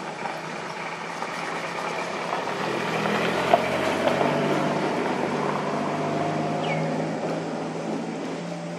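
A motor vehicle's engine droning, growing louder over a few seconds and then slowly fading, with one sharp click about three and a half seconds in.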